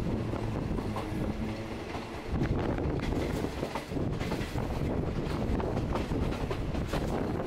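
Diesel-hauled passenger train carriage running along the track, heard from aboard: a steady rumble of wheels on rails with irregular clicks and clacks over the rail joints.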